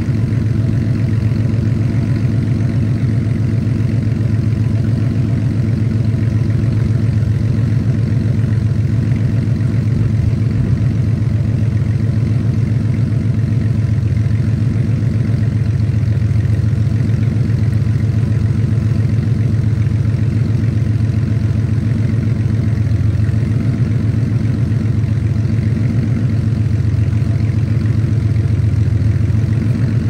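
Porsche 964's air-cooled flat-six idling steadily, its exhaust running through a Fabspeed cup pipe (primary muffler bypass) and a Dansk G-pipe.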